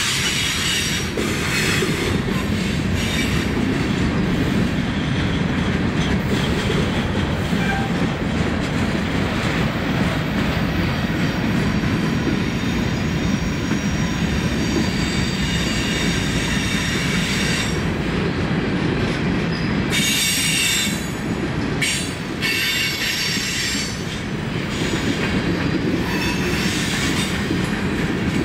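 Freight cars rolling past on steel rails: a steady rumble of wheels and trucks, with high-pitched squealing that comes and goes, strongest in the second half.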